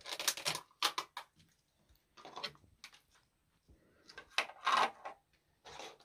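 Plastic toy capsules and wrapping being handled and pulled apart by hand: about five short rustling, clicking bursts with quiet gaps between, the longest and loudest about two-thirds of the way through.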